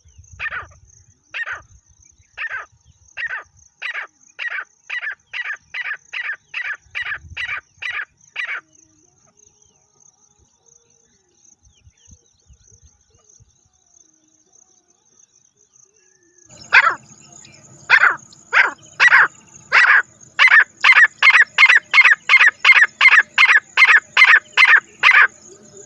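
Grey francolin calling: a series of short, harsh notes that start slowly and speed up, stopping about eight seconds in. After a pause, a second, louder series starts and speeds up the same way, ending just before the close. A thin, steady high tone runs underneath.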